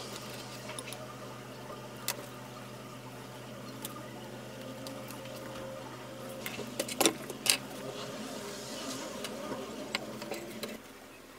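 Small clicks and taps of handle scales and steel being handled on a workbench, with two sharp snaps about seven seconds in as a spring clamp closes on the glued knife handle, over a steady low hum.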